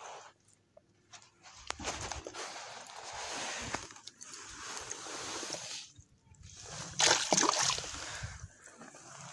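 Water sloshing and splashing as a bass is held in the shallows and released, with the loudest splash about seven seconds in as the fish kicks away.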